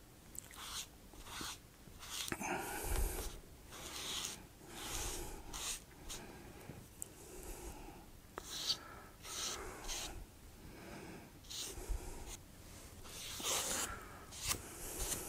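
Small foam sponge rubbing pan pastel onto a model railway's EVA foam road surface: short, irregular scrubbing swishes, roughly one every half second to second.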